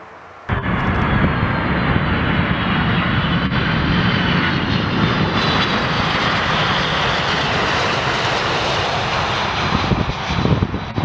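Boeing 747-400 freighter landing at close range, its four jet engines running with a steady loud rush and a thin whine on top. The sound starts abruptly. Near the end the aircraft touches down and the noise turns rougher and more uneven.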